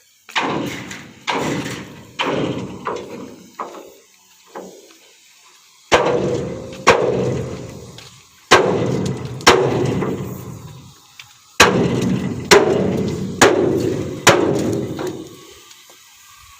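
Metal struck hard again and again, about a dozen blows, each ringing and fading: a quick run of four in the first few seconds, then blows coming in pairs about a second apart. The strikes fit hammering on a steel cement-pole mould under repair.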